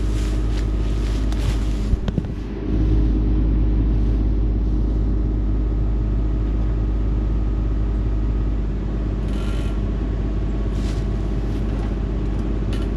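Excavator's diesel engine running steadily with a low rumble. A couple of sharp knocks come about two seconds in, and the engine gets louder just after them.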